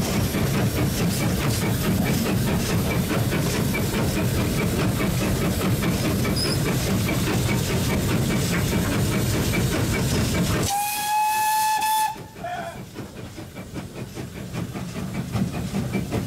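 Steam locomotive 6990 running, heard on the footplate: a loud steady rumble and hiss. About eleven seconds in the locomotive's steam whistle gives one steady blast of just over a second, after which the running sound is much quieter.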